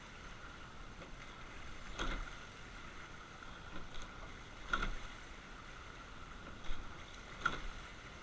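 Empacher rowing eight under way at a steady low stroke rate: a sharp knock at each stroke, three of them evenly spaced about two and a half seconds apart, from the oars in their oarlocks, over a faint rush of water along the hull.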